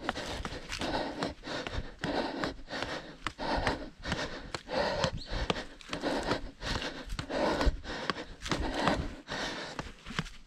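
A trail runner breathing hard in a steady rhythm of about three breaths every two seconds while running uphill, with footfalls on the trail mixed in. Picked up close by a chest-mounted action camera.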